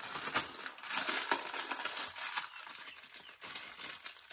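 Noodles stir-frying in a pan: a crackling sizzle with irregular clicks of a utensil against the pan.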